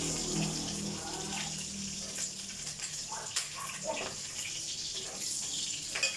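Pork barbecue frying in oil in a pan, a steady sizzle, with a few sharp clicks of a utensil against the pan or plate in the second half.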